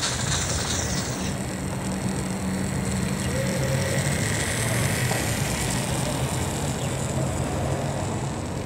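A battery-powered Hape Propeller Engine toy train running on plastic track: its small electric motor and spinning nose propeller whir steadily over a low, continuous hum, with a faint whine rising and falling around the middle.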